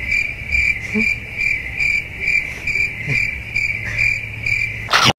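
Cricket chirping in a steady high-pitched rhythm, about two chirps a second, ending in a brief loud rush of noise near the end.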